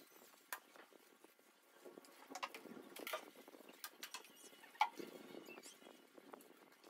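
Faint scuffing of a mop being worked, with scattered light clicks and knocks of the mop and its handle, the sharpest knock about five seconds in.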